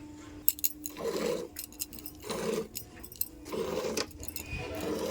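Jersey cow being hand-milked: spurts of milk squirting into a bucket in an even rhythm, about four spurts, with small sharp metallic clinks.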